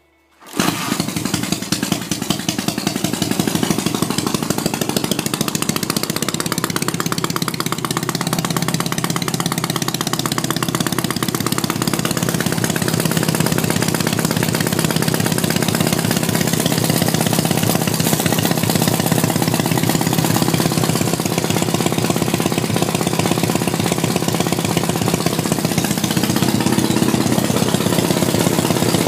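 Dnepr motorcycle's four-stroke flat-twin engine running steadily, starting abruptly about half a second in. It runs with no battery, on a CDI ignition fed by a Honda Dio scooter generator.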